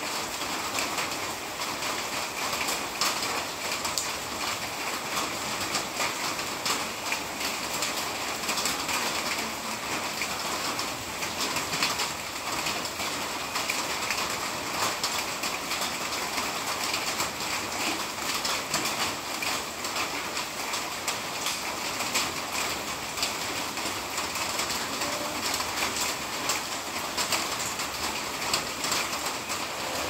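Steady monsoon rain with many separate drops striking close by as sharp ticks over an even hiss.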